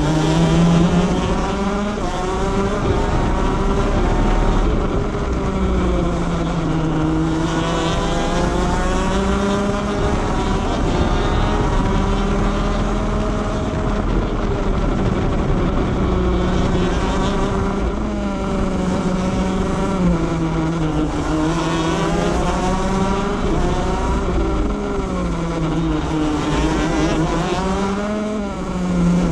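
The 125cc two-stroke single-cylinder engine of a shifter kart at race pace, heard on board. Its pitch drops and climbs again over and over as the kart slows into corners and accelerates out.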